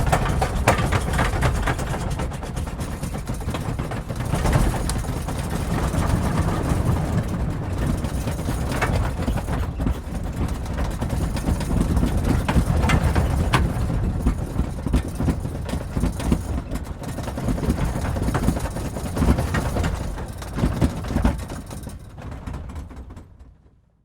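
Aircraft cabin in turbulence: a continuous low rumble of the airframe with the seats shaking hard, rattling and knocking irregularly throughout. It fades out near the end.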